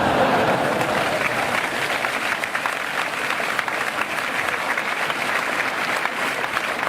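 Audience applauding steadily, many hands clapping at once as a teacher receives an award; cheering mixed in at the start.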